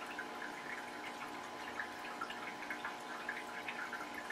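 Faint steady trickle of water with scattered small drips over a steady hum, as from a running aquarium filter.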